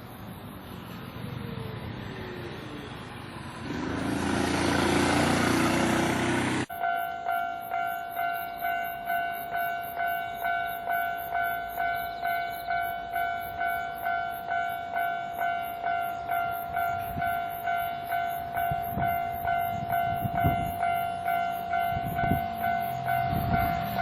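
A Kintetsu train passes close by the crossing, rising to a loud rush of noise that cuts off abruptly about seven seconds in. Then a Japanese level crossing's warning bell rings steadily at about two dings a second, with a few low thumps near the end.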